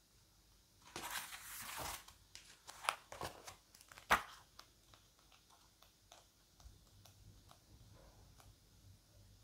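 Paper pages of a small booklet being leafed through and handled: a rustle about a second in, then a string of page flicks and small clicks, the sharpest about four seconds in, fading to faint handling ticks.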